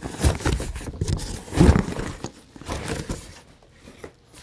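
Cardboard and plastic packaging rustling and scraping as a boxed item is pulled out, in irregular handling noises with a louder bump about one and a half seconds in.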